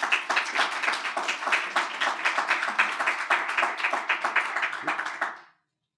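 Audience applauding after a talk ends, a dense run of clapping that dies away about five seconds in.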